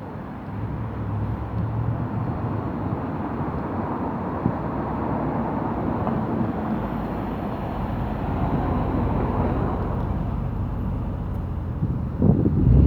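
Range Rover Sport SVR's supercharged V8 running, slowly growing louder, then jumping up sharply in loudness with rising pitch near the end.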